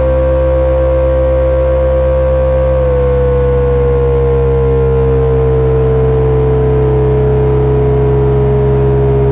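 Heavy electronic drone noise from three Frequency Analyzer V1 units and a Hewlett-Packard 200C audio oscillator: a dense, loud bed of steady low hum with a strong pure tone on top. The tone holds its pitch, then from about three seconds in slides slowly and steadily lower.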